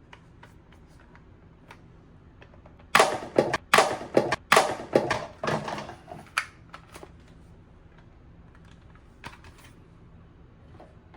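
A quick run of sharp clicks and knocks, about a dozen in three and a half seconds, then a few faint clicks later on.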